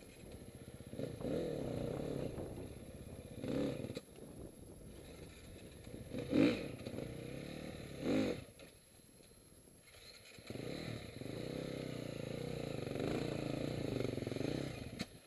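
Dirt bike engine revving in repeated short bursts, each rising and falling in pitch, as the bike works up a steep, rocky climb. A brief lull comes about nine seconds in, then a longer, steadier pull near the end.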